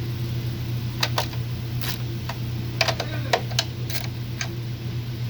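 Car engine idling steadily, with a scattered series of short, sharp clicks and taps over it between about one and four and a half seconds in.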